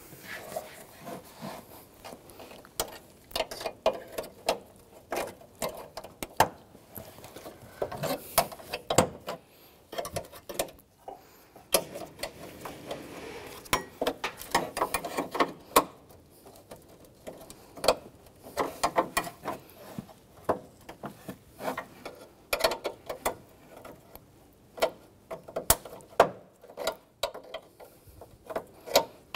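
Runs of quick, sharp clicking from a hand ratchet turning fasteners, mixed with scattered knocks and clicks of hard plastic trim and clips being worked loose.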